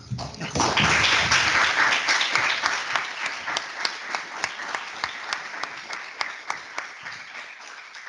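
Audience applauding: a dense round of clapping that thins out into scattered single claps and fades.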